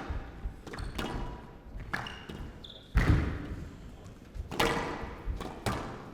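Squash rally: the rubber ball struck by rackets and smacking off the court walls about once a second, the hardest hit about halfway through, with brief squeaks of court shoes on the wooden floor.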